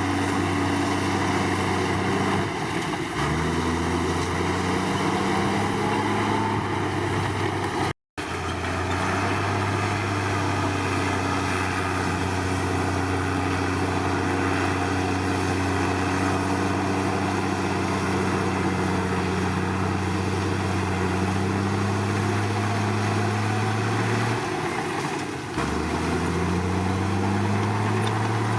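Komatsu D53 bulldozer's diesel engine running steadily under load, its pitch dipping and climbing back twice, about three seconds in and near the end. The sound cuts out for a moment about eight seconds in.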